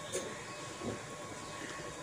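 Steady hiss of air from the HIKO 858D hot air station's fan, blowing to cool the heater down with the handle resting in its holder.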